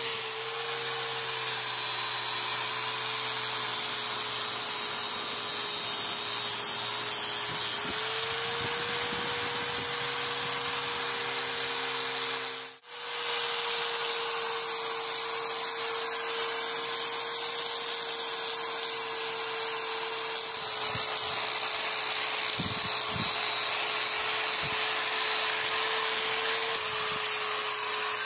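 Hand-held electric angle grinder with an abrasive disc running steadily against the flat of a steel cleaver blade: a constant motor whine over the hiss of the disc on the steel, with a brief gap about halfway through.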